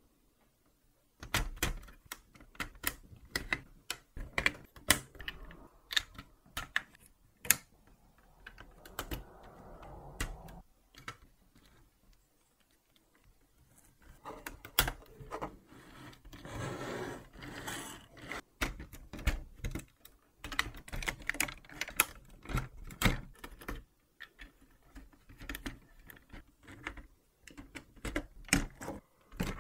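Lego Technic plastic parts being pressed together by hand: a run of sharp clicks and snaps as pins and axles seat into beams, with some rustling and scraping of pieces between them and a brief pause about halfway through.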